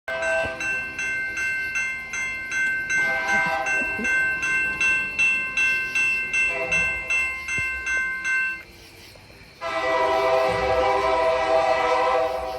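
Locomotive air horn sounding a series of blasts, ending with a long blast that begins about ten seconds in. Under the first blasts a high ringing tone pulses about three times a second, then stops about nine seconds in.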